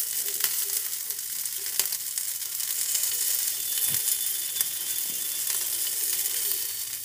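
Potato patties (aloo tikki) sizzling steadily in desi ghee on an iron tawa. A few sharp clicks come from a metal spatula and fork on the pan as the patties are turned and moved.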